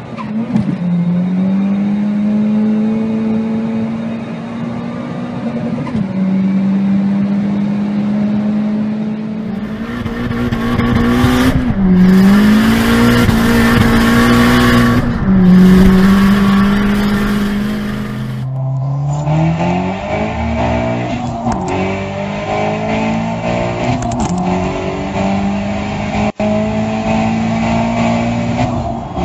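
Peugeot 1.6 THP turbocharged four-cylinder engine heard from inside the car under hard acceleration. The engine note holds and climbs, then drops briefly several times at gear changes.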